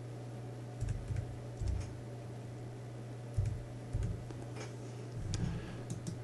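Typing on a computer keyboard: a handful of separate keystrokes, unevenly spaced, over a steady low hum.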